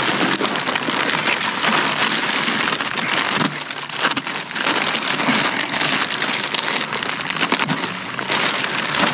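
Dense, crackling rustle of plastic garbage bags and trash being dug through and shifted, uneven in loudness with a brief lull about three and a half seconds in.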